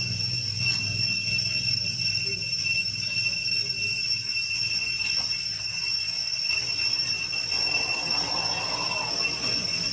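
Steady, high-pitched drone of forest insects, one unbroken tone with a fainter higher one above it, over a low rumble.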